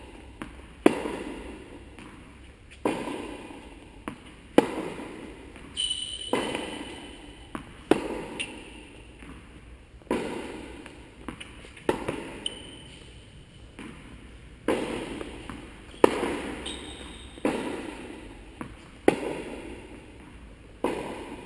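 Tennis rally: a racket striking the ball every second or two, the hits sharp and of uneven loudness, some close and some across the court, with ball bounces between. Each hit rings on in a long echo from the large indoor hall.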